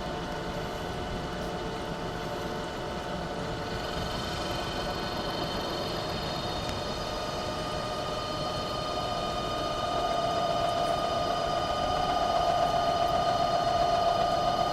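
CNC turret mill running while milling aluminium: a steady mechanical whine of several pitches over a hiss. Higher-pitched tones join about four seconds in, and it grows louder from about ten seconds in.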